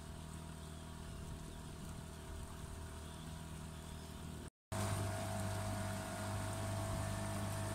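Boat motor running steadily under way, a steady hum that comes in louder after a brief dropout about halfway through. Before the dropout there is a quieter steady hum.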